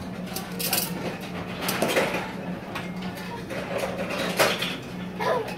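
Plates and dishes clinking and clattering, in many short scattered clinks, over a steady low hum.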